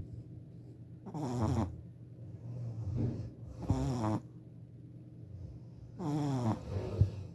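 Shih Tzu puppy snoring in its sleep: three short pitched snores about two and a half seconds apart, with a fainter breath between two of them.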